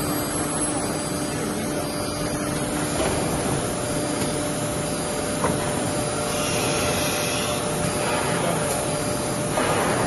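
ATC CNC wood router running under test: a steady machine noise with a high whine. A low hum drops out about three seconds in, and there are small ticks about three and five and a half seconds in.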